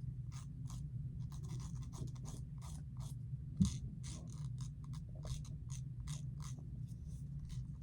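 Nail file rasping against a dog's toenails in short, quick strokes, about three a second. A brief low thump comes about three and a half seconds in.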